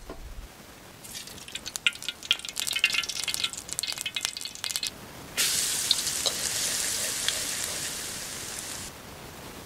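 Hot oil in a steel wok crackling and popping. About five seconds in, minced garlic and chili go into the oil and it sizzles loudly, easing off over a few seconds before cutting off near the end.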